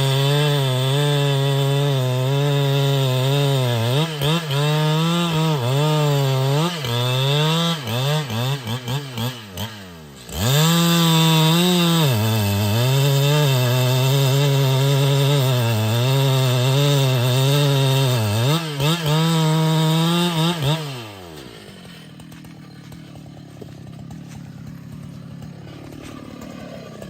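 Two-stroke chainsaw cutting into a tree trunk at full throttle, its pitch dipping and recovering as the chain bogs in the cut. It drops off briefly about ten seconds in and revs straight back up. About 21 seconds in the throttle is released and the engine winds down, leaving a much quieter steady sound.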